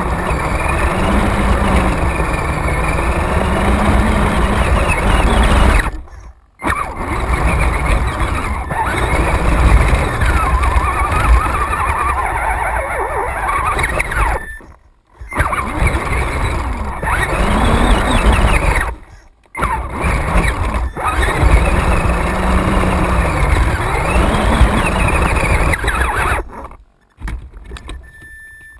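Radio-controlled off-road car driving over rough dirt, heard from a camera mounted on the car: a motor-and-gear whine that rises and falls in pitch with the throttle over a heavy rumble from bumps and wind on the microphone. The sound cuts out suddenly and briefly four times.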